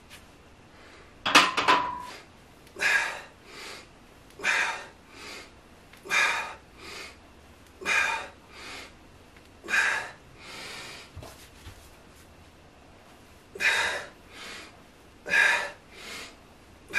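A man breathing hard through a set of bent-over one-arm dumbbell rows: a sharp exhale followed by a shorter inhale about every second and a half, with a pause a little past the middle. A single ringing metal clink about two seconds in.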